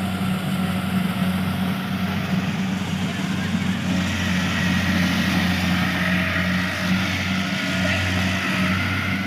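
An engine running steadily at constant speed, a low even hum with a fainter higher whine above it.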